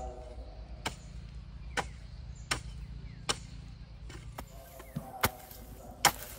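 Repeated chopping strikes, sharp and evenly spaced, about one a second, the last one the loudest.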